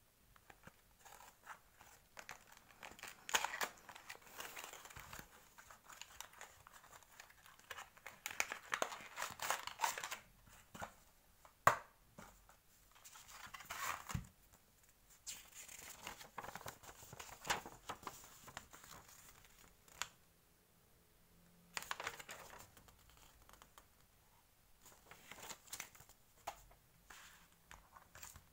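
Paper box and clear plastic packaging tray rustling and crinkling in irregular bursts as they are handled and opened, with a few sharp clicks.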